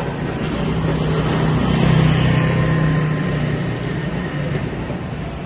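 A motor vehicle engine running close by on the street, a low hum that swells to its loudest about two seconds in and then slowly fades, over general street noise.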